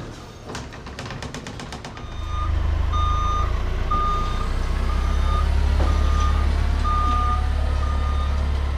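Forklift engine running loud and steady while its reversing alarm beeps about once a second as it backs out with a load, starting about two seconds in; before that, a few clicks and rattles.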